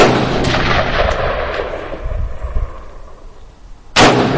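Two single rifle shots from an AR-15-style rifle, about four seconds apart. Each sharp crack is followed by an echo that dies away over a couple of seconds.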